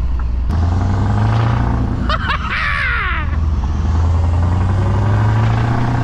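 Lorry's diesel engine pulling hard through its straight-through side-pipe exhaust, heard from inside the cab. The note steps up about half a second in and briefly drops about two seconds in.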